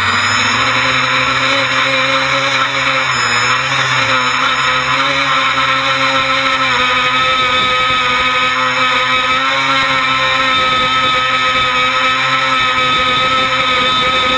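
Tricopter's brushless electric motors and propellers running, a loud, steady multi-toned whine heard close up from a camera mounted on the craft, with small shifts in pitch as the throttle changes.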